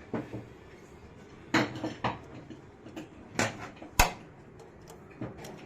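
Irregular metal clinks and knocks of hand tools on a motorcycle engine as an 8 mm bolt is fitted and tightened on the timing-chain tensioner's retaining plate. The sharpest knock comes about four seconds in.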